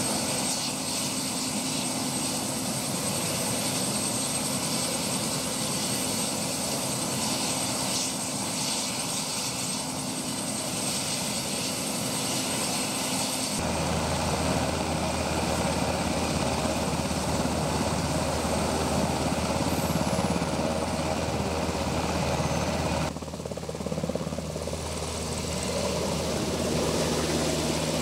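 Rescue helicopter's turbine engines and rotor running steadily on the ground, with a high turbine whine. It lifts off near the end, with the sound of the rotor and engines continuing.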